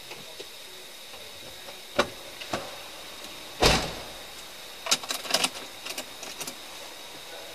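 Car doors and latches: two clicks, then a heavy door thud about three and a half seconds in, then a quick run of clicks and rattles, over a steady hiss.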